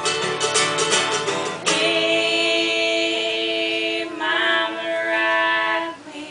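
Mandolin and acoustic guitar strumming with two voices singing, then a long held final chord and sung note from about two seconds in that stops near the end.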